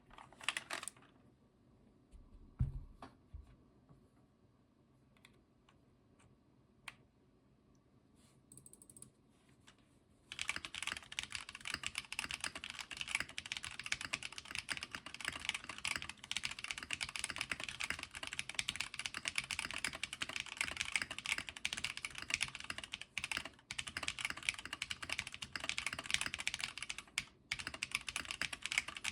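Gehirn custom keyboard with Cherry MX Red linear switches on a top-mounted aluminium plate, with OTC MoDo keycaps. There are a few isolated clicks and a low thump in the first ten seconds. From about ten seconds in there is steady, fast typing, with two short pauses near the end.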